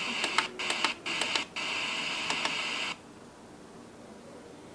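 WINBRIDGE H5 portable speaker's FM radio playing snatches of station audio, broken by short gaps and clicks as the skip button steps through stations and presets. The radio sound stops about three seconds in, leaving a low background hiss.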